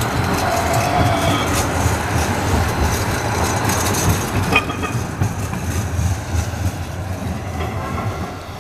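Kinkisharyo electric light rail vehicle running past on its rails, a steady rumble of wheels on track with scattered clicks and one sharp click about four and a half seconds in. It fades over the second half as the train pulls away.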